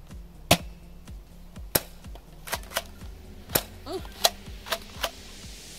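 Airsoft guns being test-fired: about eight sharp single shots at uneven intervals, each a short crack.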